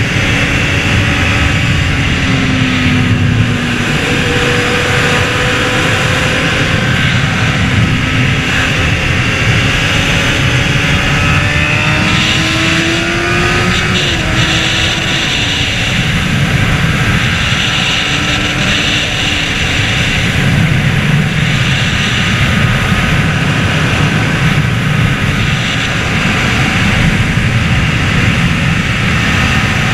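Honda CBR600RR's inline-four engine running at speed under a heavy rush of wind noise. The engine pitch rises and falls with the throttle, climbing noticeably about halfway through.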